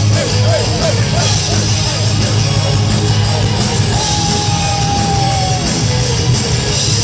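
Heavy metal band playing live, with distorted guitars, a driving drum beat and cymbals. A lead line holds one long high note about halfway through.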